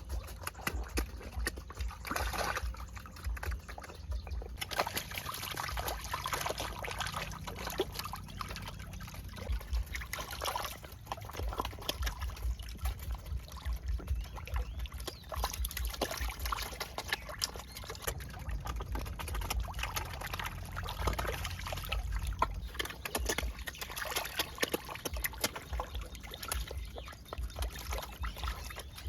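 Steady rain falling, with many close drops and trickling water, over a low rumble.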